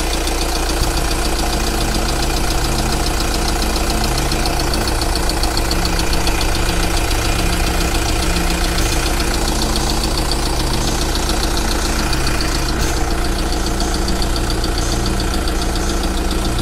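Volkswagen car's engine idling steadily, a constant low drone.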